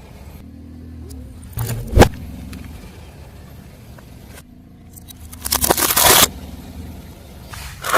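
Car tyre rolling over and crushing brittle objects, with the car's engine running low underneath. A single sharp crack comes about two seconds in, a burst of crunching and crackling around six seconds, and a short crunch near the end.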